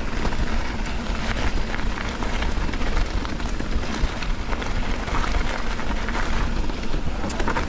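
Wind rushing over an action camera's microphone and mountain bike tyres rolling over a rough trail, with scattered clicks and rattles.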